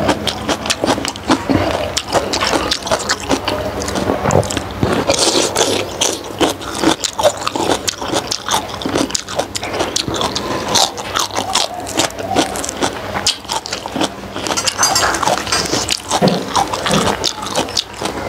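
Close-miked chewing and lip-smacking: a person eating soft steamed pig skin with fresh leafy herbs, many irregular wet clicks and smacks throughout.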